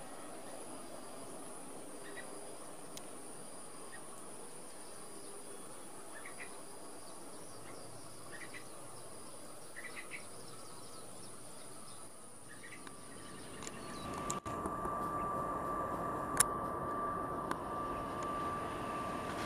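Steady high-pitched insect buzz with a few faint short chirps. From about two-thirds through, an airliner's engine noise comes up, a drone with a steady high whine, from the twin-turboprop airliner on landing approach.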